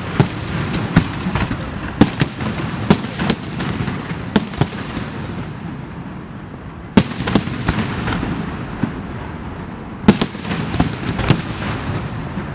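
Large fireworks display: sharp shell bangs at an irregular, rapid pace over a continuous crackling rumble. The bangs thin out briefly mid-way, then a loud bang about seven seconds in starts another run.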